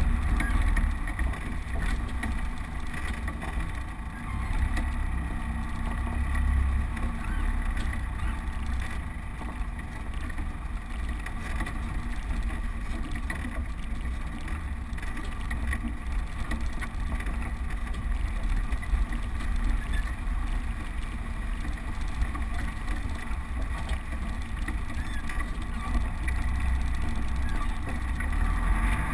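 Land Rover Defender's engine running steadily at low speed with a deep low rumble as the truck crawls along a rough lane, heard through the windscreen from inside the cab.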